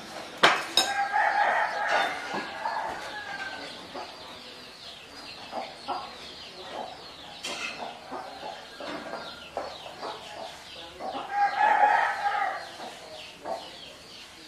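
A rooster crowing twice, about a second in and again near the end, each crow lasting a second or two, over many short high chirps. Near the start there are a couple of sharp clinks from a metal fork on a china plate.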